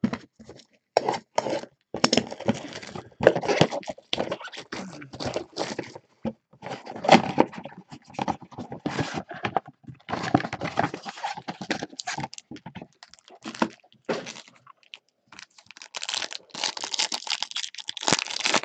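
Gloved hands handling a cardboard trading-card box and its packs: irregular knocks, thunks and tearing of cardboard and wrapping. Near the end this gives way to denser crinkling of a foil pack wrapper.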